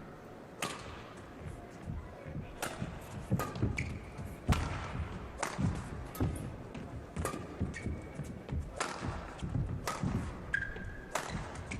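Badminton rally in a hall: sharp, irregular racket strikes on the shuttlecock and thuds of footwork on the court, with several brief high squeaks of shoes.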